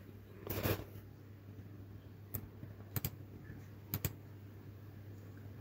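Quiet room tone with a low steady hum, a short soft rustle about half a second in, and five faint sharp clicks in the middle: one, then two quick pairs.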